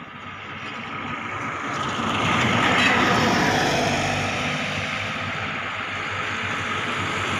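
A motor vehicle drawing near, its engine and road noise growing louder over the first two or three seconds and then running on steadily close by.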